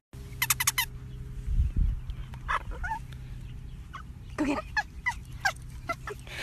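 Chihuahua yapping in short, high-pitched yips: a quick run of about five near the start, then scattered single yelps. A brief low thump about two seconds in.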